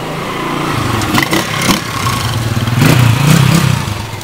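Motorcycle engine running close by, growing louder and revving about three seconds in, then dropping away near the end, with a few sharp clicks along the way.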